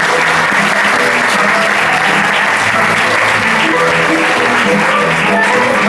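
Audience applauding while music plays; the music's notes come through more clearly in the second half.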